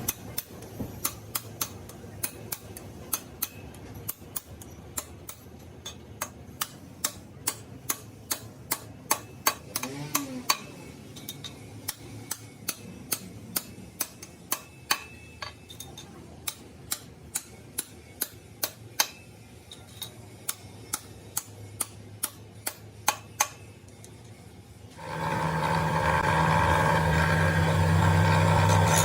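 Sharp taps, about two a second and evenly spaced, on cylinder head restoration work. About 25 seconds in, a much louder steady mechanical sound takes over, like a tool running or grinding.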